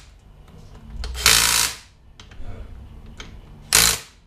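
Cordless power driver running in the small cam-sprocket bolts in three short runs, the one about a second in the longest.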